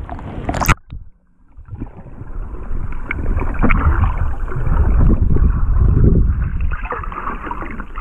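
A short splash under a second in as the camera goes under the sea surface, then muffled underwater sloshing and gurgling of sea water moving around the submerged camera, with faint ticks.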